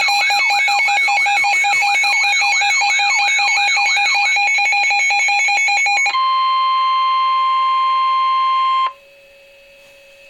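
Weather alert radio alarm: a loud electronic warbling siren, sweeping up and down about two and a half times a second over steady tones for about six seconds. It then switches to a single steady warning tone for about three seconds, which cuts off to a faint hum. This is the alert signal announcing a severe thunderstorm warning.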